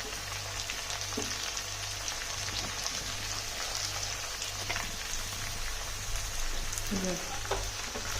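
Food frying in a pan: a steady sizzle with scattered crackles and pops, over a low steady hum.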